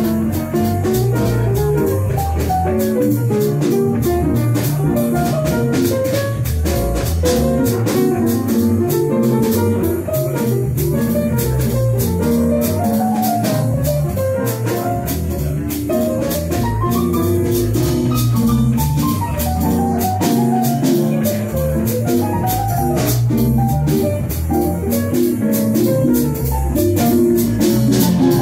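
Live small-combo jazz: piano and upright double bass playing a tune over a steady beat, the melody line climbing and falling in runs.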